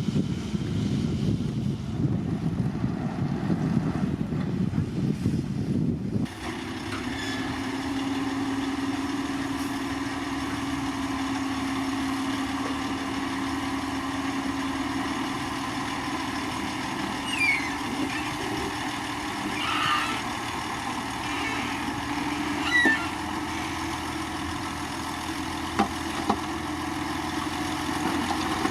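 Heavy diesel earthmoving machinery running: a rumbling stretch that changes abruptly about six seconds in to a steady engine hum, with a few short high squeaks in the middle and a couple of sharp clanks near the end.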